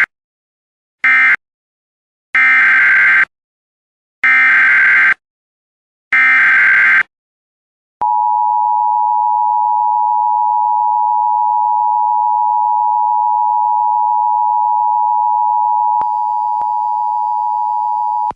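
Emergency Alert System broadcast tones. First comes the tail of the short end-of-message data bursts that close one alert. Then come three longer, buzzy SAME header bursts about two seconds apart, and from about eight seconds in the steady two-tone EAS attention signal, with a click about two-thirds through.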